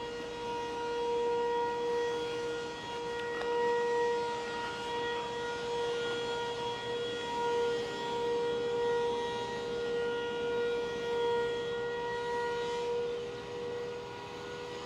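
A siren sounding one long, steady tone that swells and fades in loudness every couple of seconds.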